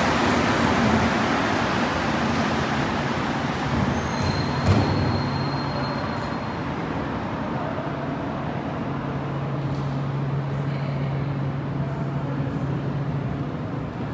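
Montreal metro Azur train pulling out of the station, its rubber-tyred running noise loud at first and fading over the first several seconds. A single knock comes about five seconds in, then a steady low hum.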